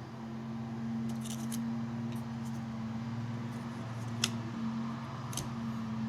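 Light clicks and rattles of plastic blower motor assemblies being handled, a few sharp ones about four and five and a half seconds in, over a steady low hum.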